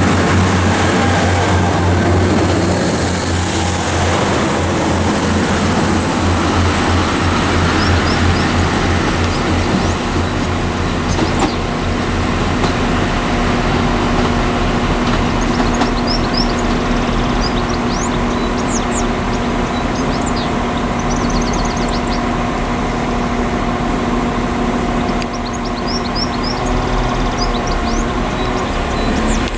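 Northern Ireland Railways diesel multiple units running, a steady diesel rumble. About halfway through, a steady humming drone joins in as another unit comes in. Small birds chirp now and then.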